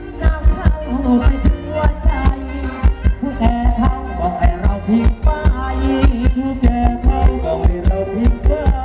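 Live band playing Thai ramwong folk dance music, with a steady drum beat, a heavy bass, and a melody line running over it.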